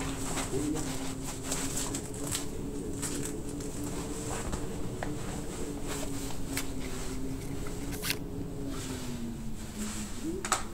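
A low steady hum that sinks slightly in pitch near the end, with scattered soft clicks and rustles.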